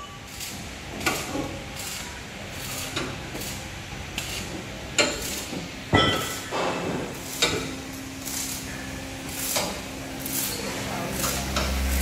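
Hammer blows and clanks on steel in a machinery workshop, irregular, about one a second, the loudest about halfway through with a short ring after it. Near the end a steady low hum sets in.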